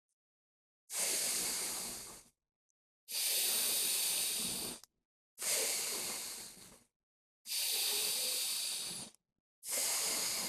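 Slow, audible breaths drawn in and pushed out through one nostril at a time in nadi shuddhi alternate-nostril breathing: five breaths of about a second and a half each, with short silent pauses between them.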